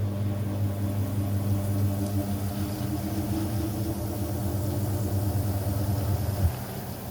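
Hoover 800RL top-loading washing machine running with a steady electric motor hum; about six seconds in there is a clunk and the hum drops away.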